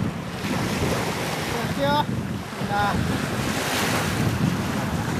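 Wind buffeting the microphone over small waves washing onto a sandy lakeshore. Two brief voice sounds are heard about two and three seconds in.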